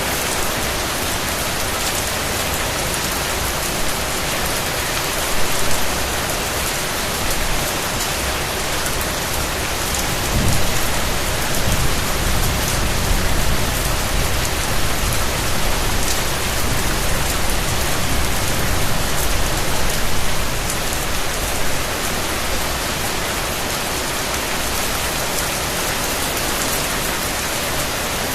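Steady rain falling, an even hiss of many drops. About ten seconds in, a low rumble swells under it and lasts about ten seconds before fading.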